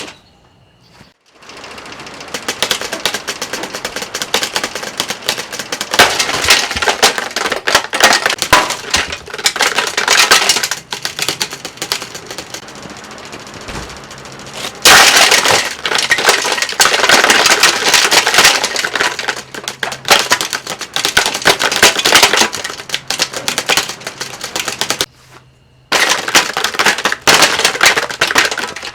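Plastic housing and parts of a box fan being broken apart: dense, rapid cracking and crunching that keeps on, breaking off for about a second near the end.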